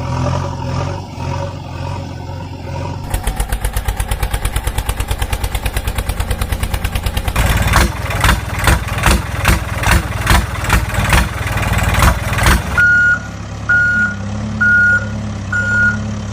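Heavy truck engine running. It first hums steadily, then chugs fast and evenly at about eight strokes a second, then pulses more heavily about twice a second. About 13 seconds in, the engine drops to a low hum and a reversing alarm beeps at one steady pitch about once a second.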